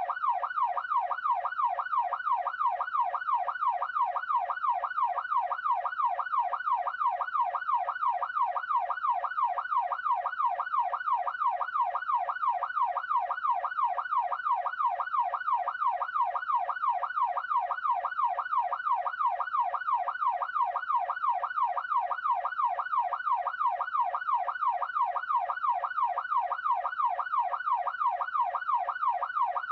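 Police siren in its fast yelp setting: a wailing tone sweeping up and down about twice a second, steady and unbroken.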